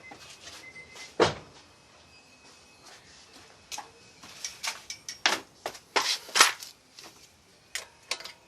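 Irregular sharp clunks and knocks from a 1995 Honda Accord's brake pedal being pumped repeatedly to bleed the brakes. One strong knock comes about a second in, and a quick cluster comes around four to six and a half seconds in.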